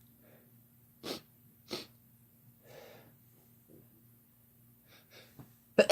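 A man's sneeze building up: two short sharp sniffs and then a few softer catching breaths, with the sneeze itself breaking out loudly at the very end.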